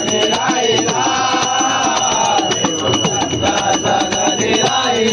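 A group of men singing a Marathi devotional abhang in unison, with long held notes, over hand percussion and clashing small cymbals that keep a steady beat.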